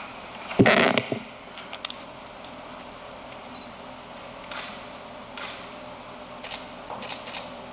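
Camera shutters clicking now and then, single and in short runs, over steady room noise. A brief louder thump comes just over half a second in.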